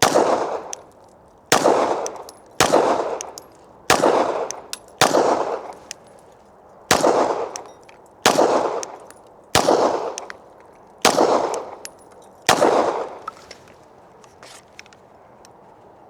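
Glock 17 9mm pistol with a Johnny Glock competition trigger, fired in about ten deliberate single shots a second or two apart, each with a ringing echo. The shots stop a few seconds before the end, leaving a few faint clicks.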